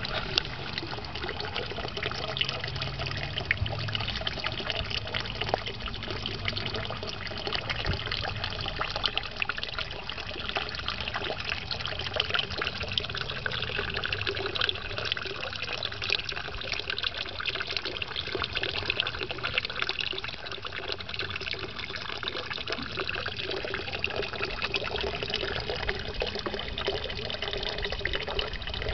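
Water trickling and splashing steadily into a garden pond, a continuous even patter of small drops.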